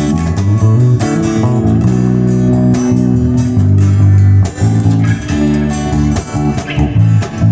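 A live gospel worship band plays an instrumental passage, with guitar strumming over a bass guitar and held chords that change every second or so.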